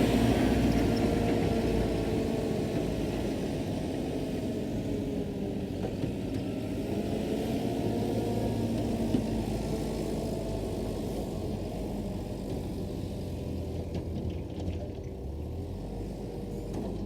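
A motor vehicle's engine running steadily with a low rumble, growing slowly quieter.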